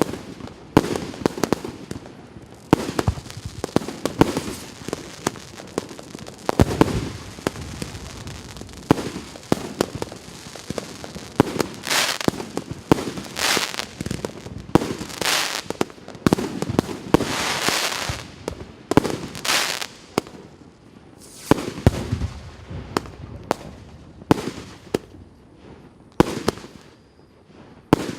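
Piroff 'Russkaya Zabava' firework battery firing a rapid run of shots and bursting bangs, with rushing stretches in the middle. The bangs thin out near the end.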